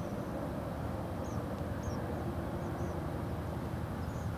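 Steady low rumbling outdoor background noise, with faint short high chirps scattered through it.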